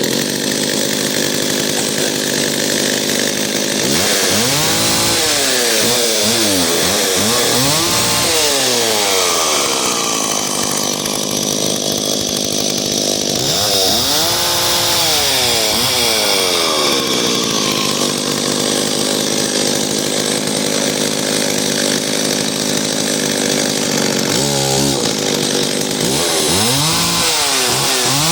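McCulloch Pro Mac 610 two-stroke chainsaw running, starting right at the beginning. The throttle is revved up and back down several times, in a few separate rises and falls in pitch.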